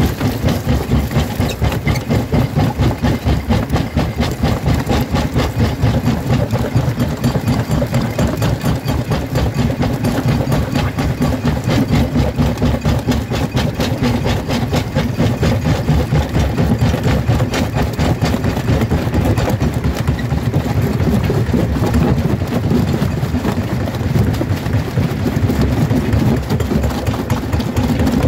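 Jaw crusher running and crushing stone between its corrugated steel jaw plates, a loud, steady, rhythmic mechanical pounding and grinding.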